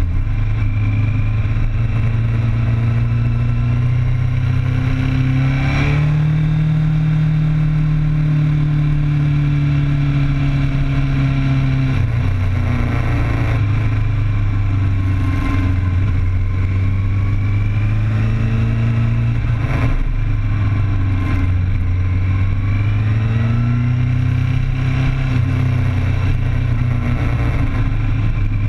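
Inline-four sport motorcycle engine running at speed through a series of curves, its note rising and falling with the throttle: it climbs about six seconds in, drops back about twelve seconds in, and climbs again twice in the last third, over a steady rush of wind and road noise.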